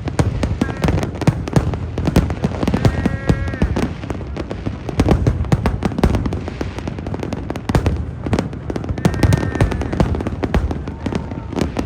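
Fireworks display going off: a rapid, unbroken barrage of bangs and crackles.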